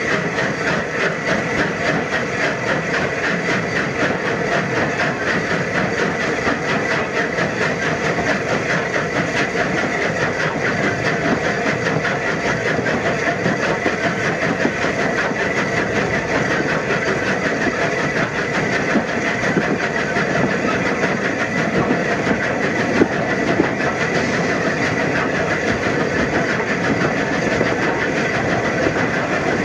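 Steam locomotive running, with a fast, even beat and a steady hiss that keep up without a break.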